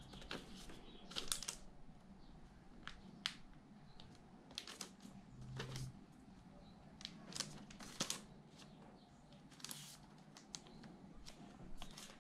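Faint, irregular taps, clicks and rustles of hands handling a MacBook Pro laptop and its packaging, including the plastic protective film and the box's cardboard tray.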